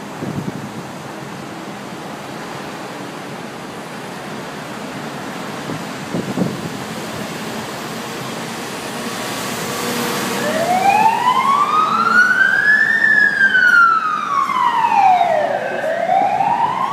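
Hong Kong Fire Services light ambulance siren on a slow wail. It starts about ten seconds in, rises over roughly two and a half seconds, falls again and begins another rise, over a steady background hum.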